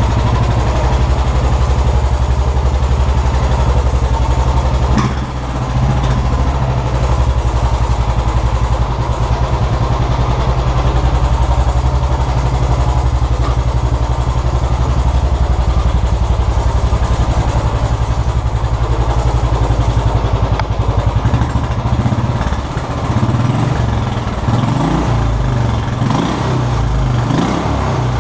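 Royal Enfield single-cylinder motorcycle idling through its stock exhaust with a steady low thump, the "lovely sound" of the standard pipe. Near the end the steady beat breaks up and turns rougher.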